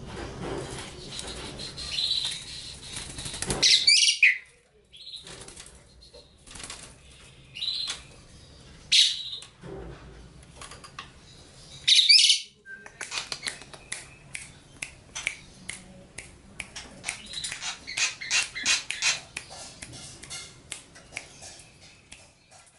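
Caged Asian pied starling (jalak suren) giving a few short, sharp high calls in the first half, with wing flutters, then a long run of quick light taps and rustles as it moves about the cage.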